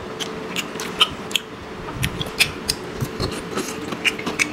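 Close-miked chewing of fried fish balls: irregular sharp mouth clicks and smacks, several a second.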